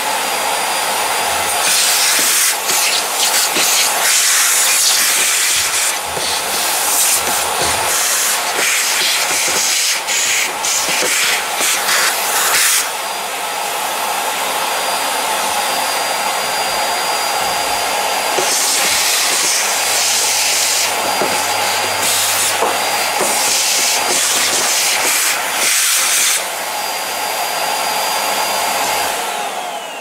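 Vacuum cleaner running with its hose nozzle sucking debris out of the slotted plastic cowl air-intake grille below a car's windscreen. The rushing hiss brightens and dulls several times as the nozzle works over the slots, with a faint thin whistle on top.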